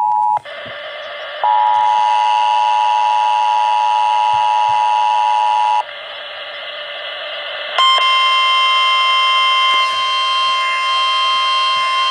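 Emergency Alert System attention tones over a hissy, distorted broadcast background. A two-tone alert signal cuts off just after the start. A single steady tone sounds for about four seconds. After a short quieter gap, a new single steady alarm tone, like the NOAA Weather Radio warning tone, starts about eight seconds in.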